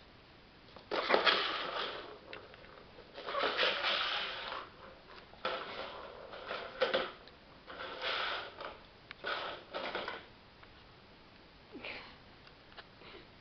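A plastic cat track-ball toy being knocked about by a chihuahua: its ball rattles and rolls in the track and the toy scrapes on the laminate floor, in a run of short bursts of about a second each with some sharp clicks between them.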